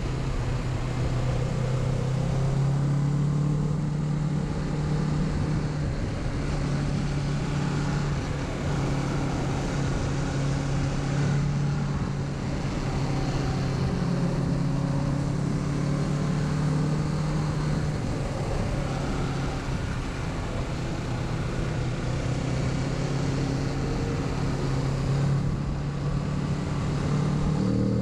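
Kawasaki Z650's parallel-twin engine running at fairly steady cruising revs, heard from the rider's seat. The revs begin to climb right at the end.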